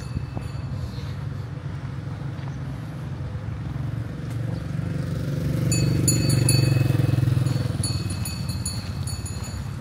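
Road traffic: a steady low engine rumble, with a motor vehicle passing close, loudest about six to seven seconds in and then fading away.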